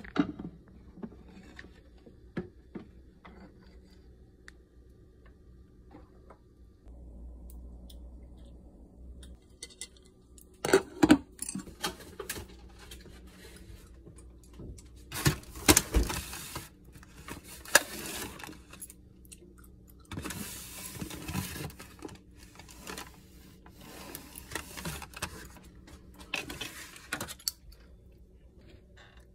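Kitchen handling noises: scattered knocks, clatters and rustling as a bowl, a plastic tray and things in an open refrigerator are handled, with a few louder clatters partway through.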